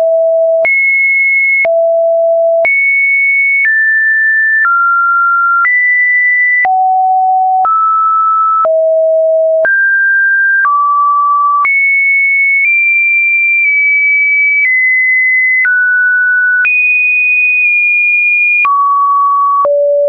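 Webdriver Torso test-video tones: a run of pure sine-wave beeps, each about a second long, that jump to a new random pitch between a low and a high register with a click at each change.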